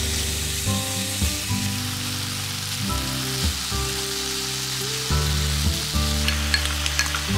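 Eggplant and thin-sliced pork sizzling in sesame oil in a frying pan, stirred and spread with chopsticks. Soft background music with steady low notes plays underneath.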